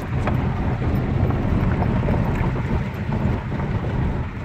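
Hyundai Porter II small truck driving over a rough gravel track, heard from inside the cab: a steady low engine and road rumble with scattered light rattles and knocks from the bumpy ground.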